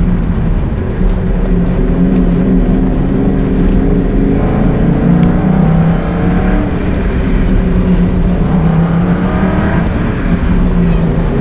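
SN95 Ford Mustang engine heard from inside the cabin on a hard autocross run. The engine note falls off about four seconds in as the driver lifts, climbs steadily under acceleration, then drops again near the end when it slows for the next section.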